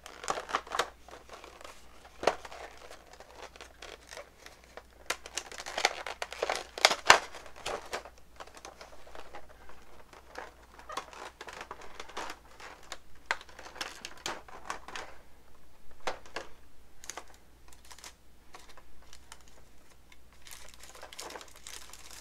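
Clear plastic blister packaging and plastic bags crinkling and crackling as they are handled, in irregular spells, loudest about six to seven seconds in and sparser in the second half.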